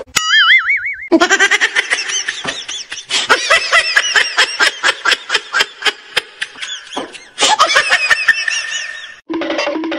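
A short warbling tone, then laughter in rapid repeated bursts, broken off briefly about seven seconds in.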